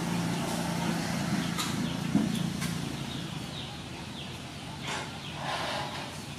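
Outdoor background: a steady low motor hum that fades out about halfway through, then a few short falling chirps like small birds.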